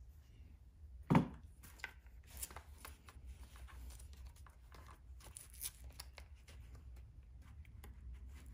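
Hands handling a nylon gun belt and plastic magazine-carrier clips: scattered light clicks and rustling, with one louder knock about a second in.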